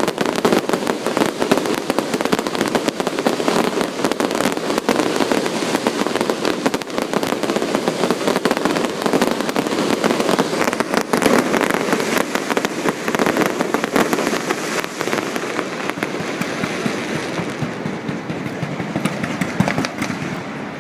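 Aerial fireworks going off in a dense, continuous barrage of crackling bangs and pops, with many sharp reports packed close together throughout.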